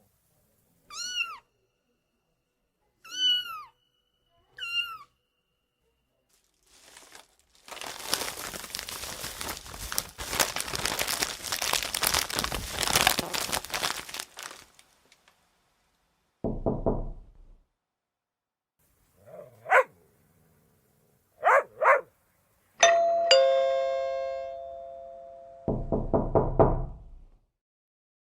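A string of separate prank sound effects for dogs: three short high calls falling in pitch, about six seconds of noisy hiss, a few short calls, then a two-note doorbell chime that rings out and fades, followed by a brief buzzing rasp.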